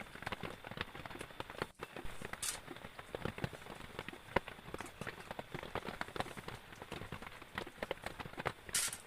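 Rain dripping and tapping irregularly on a surface, a dense patter of separate drops, with two short hissing bursts, about two and a half seconds in and near the end.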